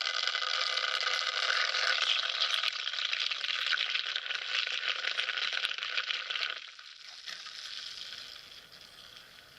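Self-stirring mug's small battery motor whirring as its blade spins the drink. It stops about two-thirds of the way through, leaving a fainter whir that fades away.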